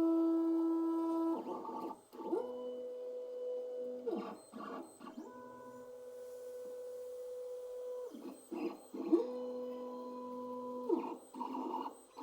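Creality CR10 S5 3D printer's stepper motors whining at steady pitches as the print head makes long moves, the pitch jumping with short chirps several times as the head changes direction or speed.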